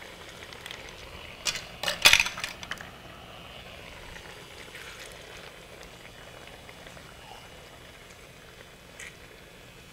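Marinated chicken cooking in a hot skillet, a steady low hiss, with a few clatters about two seconds in as a spatula stirs and knocks against the pan.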